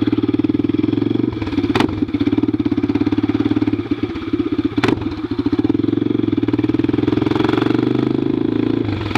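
Honda NX Falcon's single-cylinder engine running loud through an open exhaust pipe with no muffler, an even pulsing beat. Two sharp clicks cut through, about two and five seconds in.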